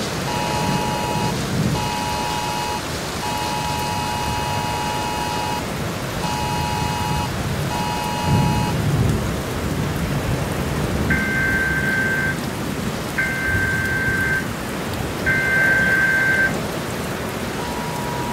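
Emergency Alert System two-tone attention signal from a TV, beeping in five pulses over steady rain and low rumbles of thunder. About eleven seconds in it changes to three higher two-note beeps, and near the end a single steady tone starts: the alert announcing a tornado warning.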